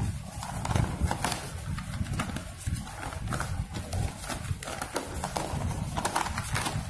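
Sheets of paper being lifted and turned by hand, rustling with irregular soft taps.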